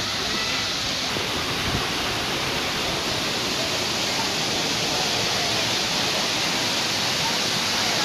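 Several waterfall streams pouring onto rock: a steady, even rush of falling water, with faint crowd voices under it.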